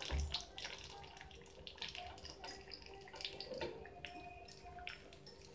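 Cashew nuts sizzling and crackling in hot ghee in a small iron tempering ladle, gradually getting quieter. A low bump sounds right at the start.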